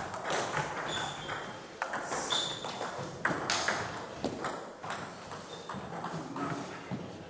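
Celluloid table tennis ball clicking against bats and the table in a rally: a string of sharp, irregular ticks.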